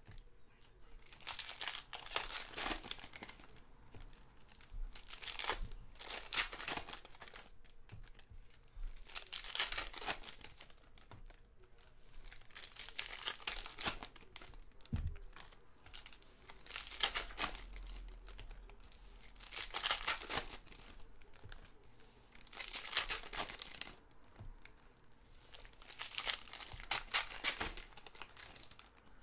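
Foil trading-card pack wrappers (Panini Prizm Fast Break basketball) being torn open and crinkled by hand, in repeated bursts of crackling every few seconds, one pack after another.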